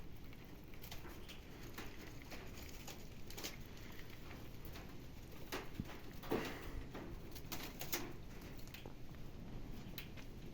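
Young Californian rabbits moving about in their cages: irregular light pattering, clicks and rustles, with a couple of louder knocks about six and eight seconds in.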